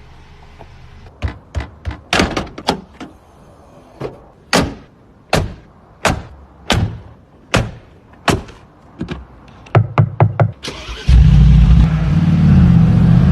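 A series of sharp mechanical clunks, roughly one a second, from inside a Mercedes G-Class. Then, about eleven seconds in, the engine starts and runs loud, its pitch rising near the end.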